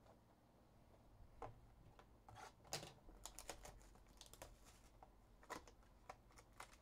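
Faint, irregular clicks and crinkles of hands opening a Panini Mosaic Choice trading-card box and pulling at its paper and plastic wrapping, starting about a second and a half in.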